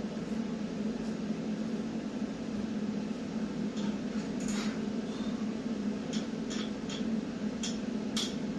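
TIG welding machine humming steadily during frame welding, with several sharp metallic clicks in the second half.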